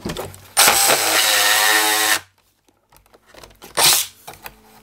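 Jigsaw cutting into a thin plywood panel. It runs steadily for about a second and a half, then stops abruptly, with one short burst just before four seconds in.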